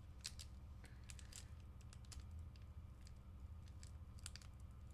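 Faint, scattered light clicks and taps of trading cards and card packs being handled, over a steady low hum.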